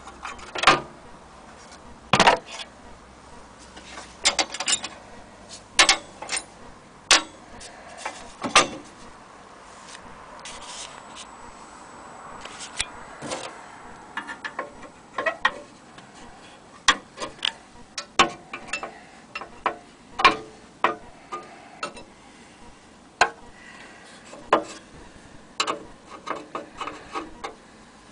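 Irregular knocks, clicks and rubbing as the parts of an old metal military stove are handled: single sharp knocks a second or two apart, with quicker clusters of clicks in places.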